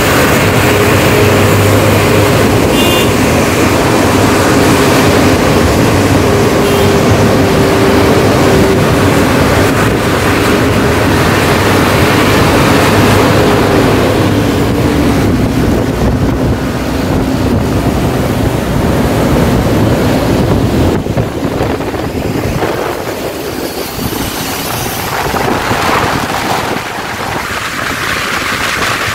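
Rear-engined diesel intercity coach running close by, its steady engine hum sliding down in pitch about halfway through, over a loud steady rush of rain and traffic noise that eases after about twenty seconds.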